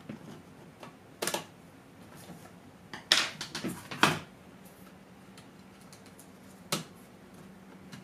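Sharp plastic clicks and taps from an opened laptop being handled while its battery connector is reattached: one about a second in, a cluster around three to four seconds, and a single one near the end.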